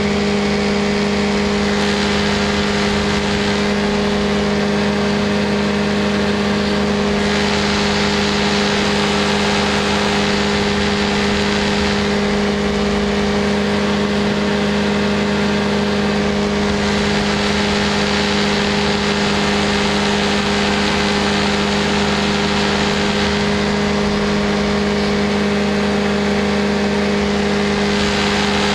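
Small aircraft engine running steadily at cruise power in flight, with a constant drone, and wind rushing over the microphone that swells and eases every few seconds.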